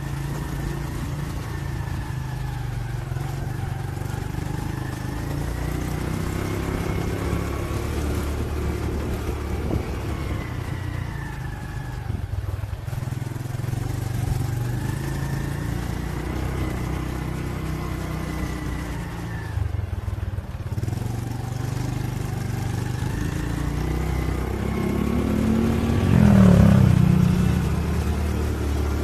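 Motorcycle engine running as the bike rides along, its pitch rising and falling with speed. Near the end there is a brief louder swell.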